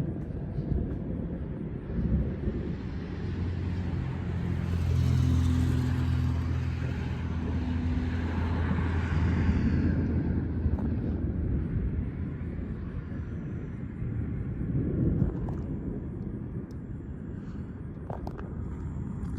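Wind rumbling on the microphone, with a motor vehicle passing by: its engine hum and road noise swell from about three seconds in and fade out by about ten seconds.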